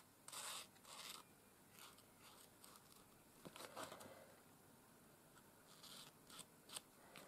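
Short, faint scratchy strokes of a black Posca paint marker's tip drawn along the edge of a card, mixed with light rustling as the card is handled.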